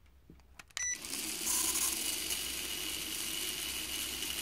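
The JJRC H37 Mini Baby Elfie drone's four small motors and propellers start spinning about a second in, after a few faint clicks and a short beep, then run steadily. This is a bench test after refitting the motors, to check that each one spins the right way.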